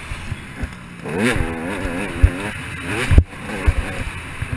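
A KTM 200 XC-W's two-stroke single-cylinder engine being ridden hard on a dirt track, its pitch rising and falling quickly several times from about a second in as the throttle is worked over the bumps. Sharp low thumps come about two and three seconds in, the later one the loudest.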